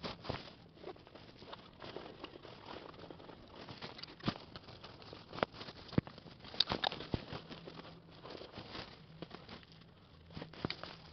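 Irregular rustling and crinkling with scattered sharp clicks and taps, a few louder ones near the middle, as of hunting gear and brush being handled.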